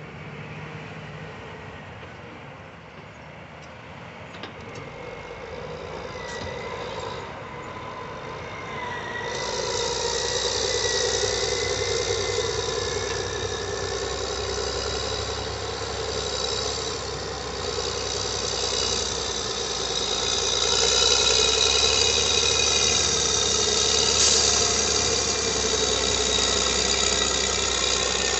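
Cat 623 elevating scrapers and a track dozer working close by: heavy diesel engines running under load, with a high metallic squeal over them. The sound grows louder about a third of the way in and again later as the machines come near.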